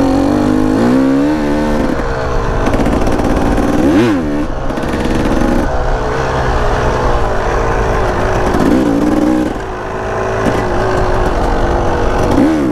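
Enduro motorcycle engine running under way on an off-road trail, its revs rising and falling with the throttle, with a quick drop and pick-up about four seconds in.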